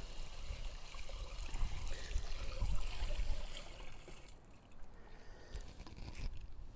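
Water from a garden hose running into an emptied Thetford toilet cassette's spout, partly filling it to rinse it out. The flow stops a little over four seconds in, followed by a few light clicks and knocks.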